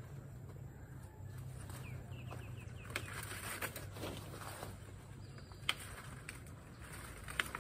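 Hand pruning shears snipping cacao tree shoots, a few sharp clicks, with leaves and branches rustling as they are pulled and cut. Small birds chirp now and then in the background.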